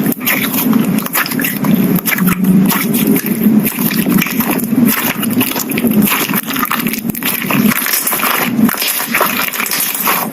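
Slime being squished and kneaded by hand, a continuous run of wet, sticky crackles and tiny pops as air pockets burst.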